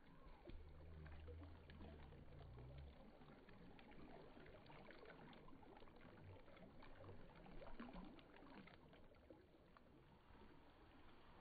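Faint flowing water of a shallow stream: a soft, steady rush with small trickling ticks.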